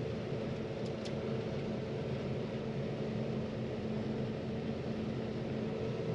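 Steady drone of a John Deere 9500 combine running while harvesting corn, with a constant hum and two faint ticks about a second in.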